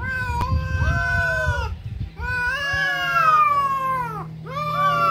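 Two cats, a Siamese and a black cat, caterwauling at each other in a fight standoff: three long, wavering yowls in a row, the two voices overlapping at times, with short breaks about two seconds in and near the end.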